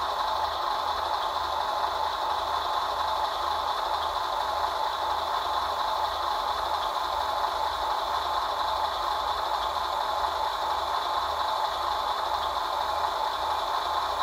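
Hydraulic pump of a ScaleART Mercedes Arocs RC model truck running steadily, with a steady hum and an even low throb, while it drives the Palfinger loader crane.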